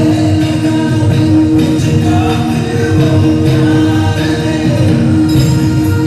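Recorded song playing loudly: singing over instrumental backing.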